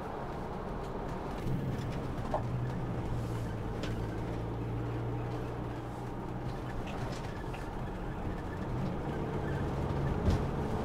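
Steady engine drone and road noise inside the cab of a Bailey Adamo 75-4T motorhome on the move, with a few faint ticks.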